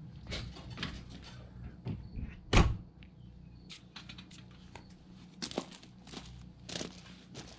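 Travel trailer entry door shutting with one loud thunk about two and a half seconds in, amid knocks of feet on the trailer's steps, followed by a run of footsteps walking away from the trailer.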